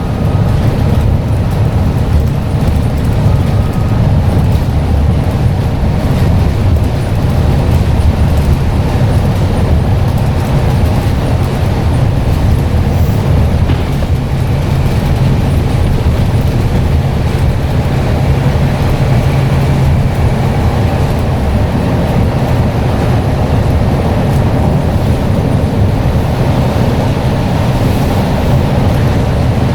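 Scania N94UD double-decker bus's engine and drivetrain running steadily, a loud low drone.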